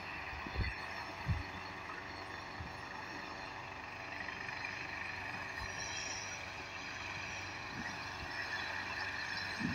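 Medical helicopter running on the ground: a steady high turbine whine over the constant rush of the turning rotor, with two brief low thumps about a second in.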